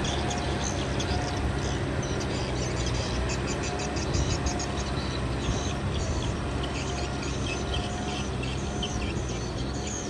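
Kubota M6040 tractor's diesel engine running steadily, with many short high-pitched chirps over the hum.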